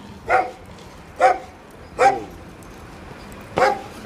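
A dog barking: four short single barks about a second apart, with a longer pause before the last one.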